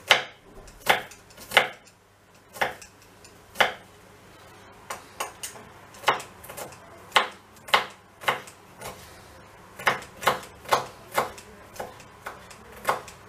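Kitchen knife chopping garlic finely on a wooden cutting board: a couple of dozen sharp, uneven knocks, spaced out at first and coming closer together after about five seconds.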